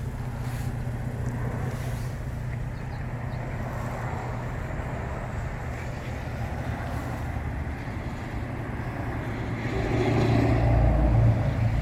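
A vehicle engine running steadily with a low hum, growing louder about ten seconds in before easing off near the end.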